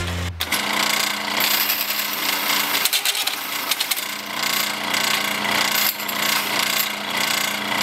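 Drill press running a bimetal hole saw through square steel tubing: a dense grinding, scraping noise full of rapid ticks from the teeth biting the metal, over a steady motor hum. It starts about half a second in.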